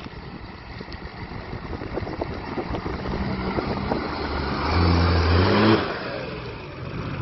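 A 4WD's engine revs up, rising in pitch and getting loud about five seconds in, then drops back off suddenly.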